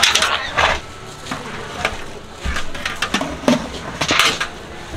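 Cups and dishes clinking and knocking as they are handled, about five separate strikes, the loudest right at the start.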